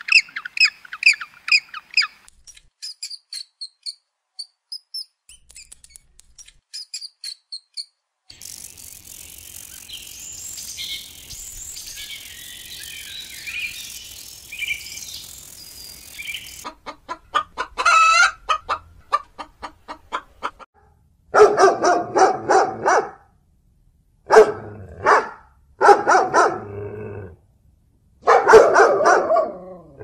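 A run of different bird calls: fast repeated calls at first, then thin high chirps and a stretch of chirping over a noisy background, and in the last third several loud calls lasting a second or two each, in the manner of fowl clucking and crowing.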